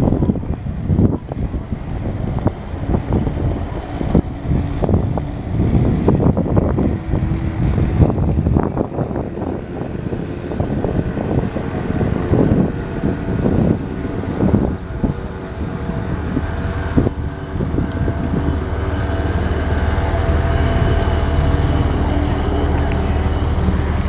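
Wind buffeting the microphone, then a boat's engine running steadily and growing louder as the boat passes close, settling into a low, even drone over the last several seconds.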